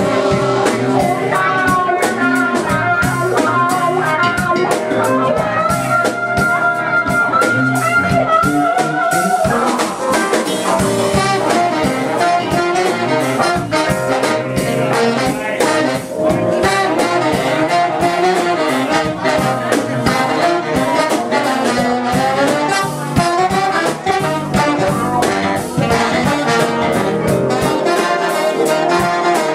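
Live jazz band music: a horn section of saxophones and trombones playing the melody over drums, bass, guitar and keyboard.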